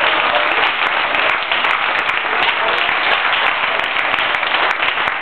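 Audience applauding: dense, continuous clapping that holds steady throughout.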